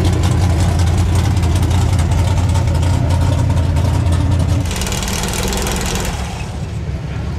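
Lifted square-body GM pickup on oversized mud tires, its engine idling steadily with a deep low hum. About two-thirds through, the engine sound drops away and a short hiss takes over, followed by a quieter stretch.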